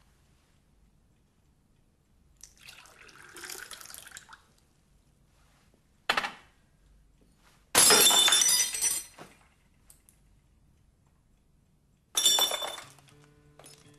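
Stemmed wine glasses smashed on a hard floor: a sharp crash, then a much louder, longer shattering crash about eight seconds in, and a third crash near the end, after a softer clatter a few seconds before.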